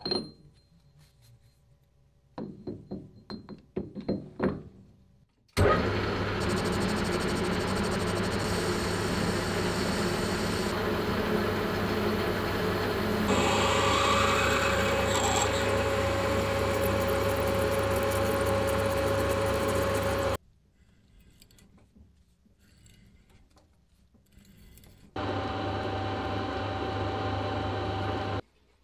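Metal lathe spindle running while a center drill in the tailstock drill chuck cuts a center hole in the end of a metal shaft, a steady run of about fifteen seconds with a steady tone joining partway through. It is preceded by scattered clicks of handling. Near the end the lathe runs again for a few seconds while a countersink chamfers the hole.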